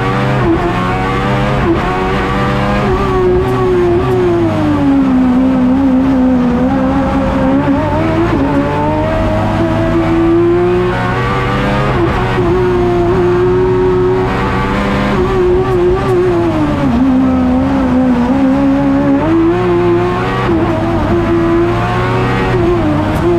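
Suzuki GSX-R 1000 inline-four motorcycle engine in a Fiat X1/9 race car, heard from inside the cockpit at full race pace. The revs climb and drop over and over, with quick gearshifts through the low gears as the car accelerates and brakes between slalom chicanes.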